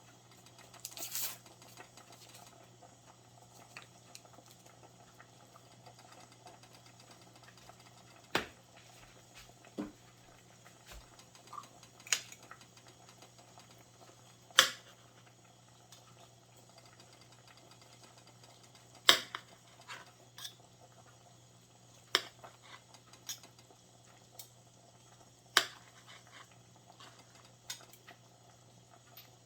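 Occasional sharp clinks of cutlery against a dish or bowl, about seven scattered through the stretch, some ringing briefly, over a steady low hum.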